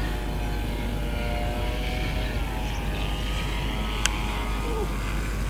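Electric brushless motor and propeller of an RC model warplane running in flight during a spin, a steady whine whose pitch dips and recovers about halfway, over wind noise. Two sharp clicks, one at the start and one about four seconds in.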